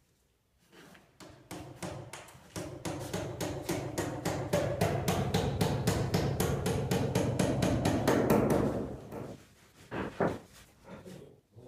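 Hammer struck rapidly, about five blows a second, while working at the top course of an aerated-concrete block wall. The blows start about a second in, run for about eight seconds and then stop, followed by a couple of single knocks.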